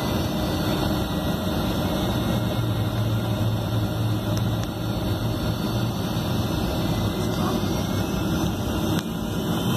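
Boeing 757's Rolls-Royce RB211 jet engines at taxi thrust, heard from inside the passenger cabin as a steady rumble with a low hum.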